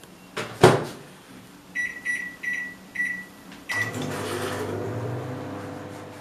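Samsung microwave oven door shut with a knock, then five short keypad beeps, after which the oven starts and runs with a steady hum.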